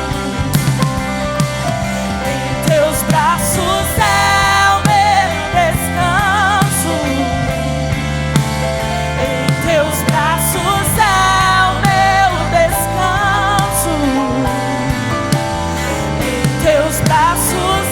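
Live worship band music: a slow song with a wavering, vibrato melody line over steady held chords and bass.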